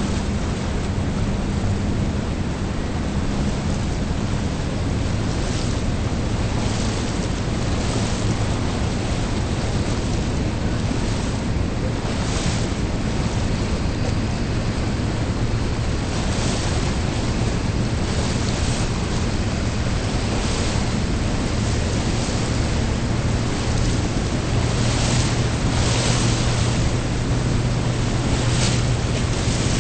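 Boat engine running steadily under way, with water rushing and splashing along the hull and wind buffeting the microphone. The boat is motoring forward so the drag of the buoy pulls the anchor up the line.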